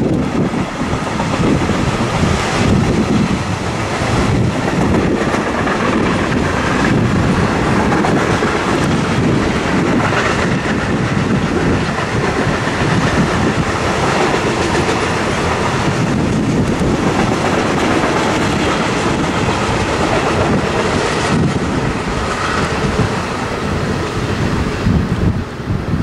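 Container freight train hauled by an electric locomotive passing at speed, a steady rumble of wagons with repeated wheel clacks over the rails, easing off slightly near the end as the last wagons go by.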